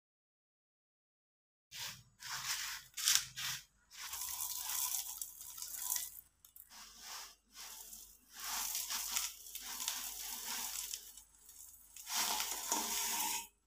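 Dried split lentils, black peppercorns, small spice seeds and dried turmeric roots poured from a steel plate into a plastic basin of dried coriander seeds: a dry rattling hiss of grains sliding and falling. It comes in several uneven spurts, beginning about two seconds in.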